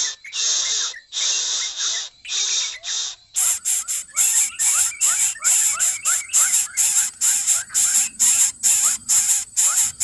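Greater coucal nestlings begging with repeated hissing rasps. The rasps come about once a second at first, then from about three seconds in faster, about two a second, each with a short rising note.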